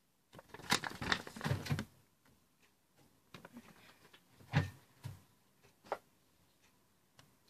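Paper and packaging being handled, with a burst of rustling and crinkling for about a second and a half, then a few light knocks as things are put down and picked up.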